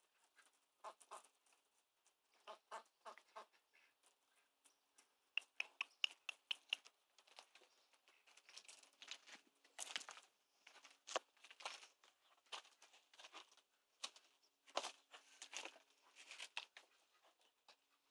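Runner ducks quacking softly in short strings of calls, some in quick runs of several notes.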